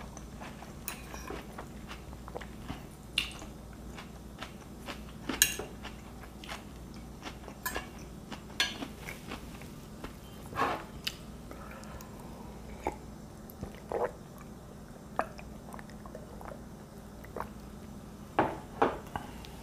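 Close-up eating sounds: a fork clicking and scraping on a plate and crisp salad being bitten and chewed, in scattered irregular clicks and crunches.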